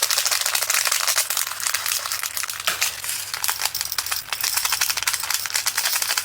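Tiny resin diamond-painting drills pouring and rattling out of a small plastic bag into a storage container: a dense, steady patter of small clicks, with some crinkling of the bag.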